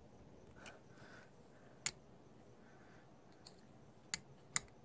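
Mostly quiet, with a few sharp clicks and taps from a hand tool and carburetor parts being handled: one a little under two seconds in and two close together near the end.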